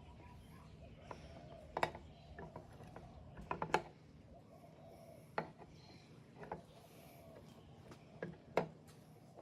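Metal parts of a Shimano Tiagra 130 lever-drag fishing reel clicking and knocking together as a gear is fitted during reassembly: scattered sharp clicks, with a quick run of several about three and a half seconds in.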